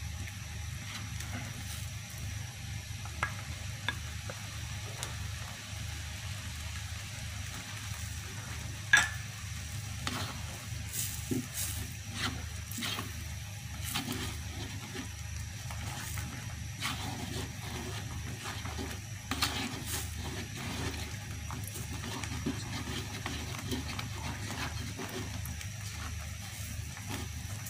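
Salted egg yolk sauce sizzling in a wok while a plastic spatula stirs and scrapes through it, with scattered knocks of the spatula against the pan; the sharpest knock comes about nine seconds in.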